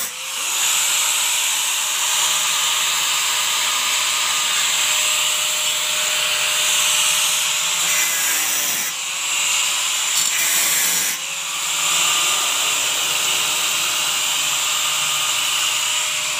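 Small electric angle grinder running against the steel roof of a truck cab, a steady motor whine with grinding hiss. Twice in the middle it is switched off and its whine drops as it spins down, then it starts up again; it spins down once more at the end.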